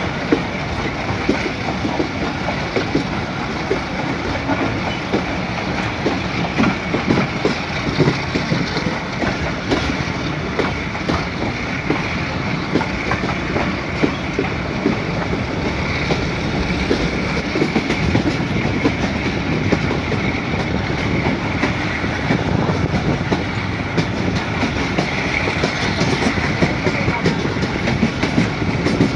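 Pakistan Railways passenger train running on the line, with a steady rumble and the clickety-clack of wheels passing over rail joints.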